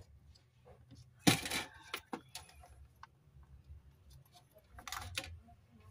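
Small hard objects clattering and clicking as tools are handled at a TV repair bench during soldering: one sharp clatter about a second in, a few light clicks just after it, and another short rattle near the end.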